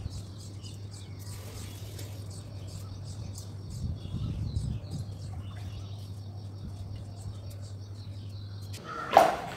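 Small birds chirping in short, scattered calls over a steady low hum that stops shortly before the end. A brief, loud sound comes just before the end.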